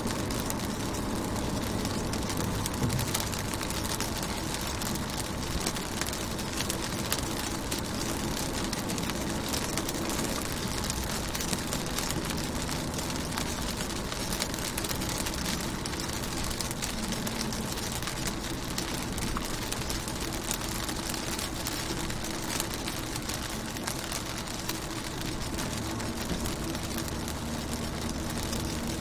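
Steady rain on a car's windows and body: an even hiss dotted with many small drop taps, with a low hum underneath.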